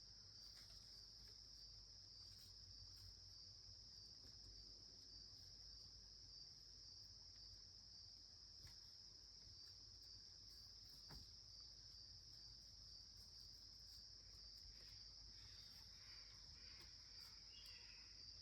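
Faint, steady high-pitched trilling of insects, like a chorus of crickets, unbroken throughout. A few faint chirps join in near the end.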